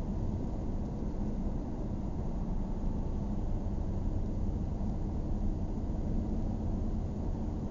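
Steady low rumble of a car's engine and tyres on the road, heard from inside the cabin while the car climbs a hill.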